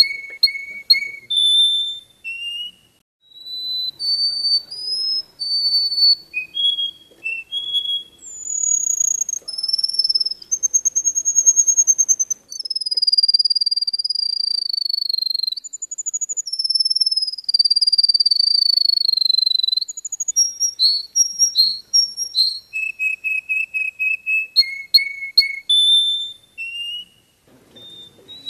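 Saffron finch singing a long, varied song of clear whistles. Short chirps and rapid trills of repeated notes alternate with long sliding whistles, some held for two or three seconds and slowly falling in pitch.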